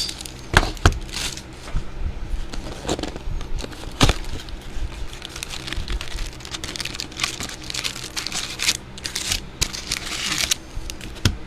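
Plastic wrapping crinkling and tearing, with scattered sharp clicks and taps, as a sealed box of trading card packs is opened and handled.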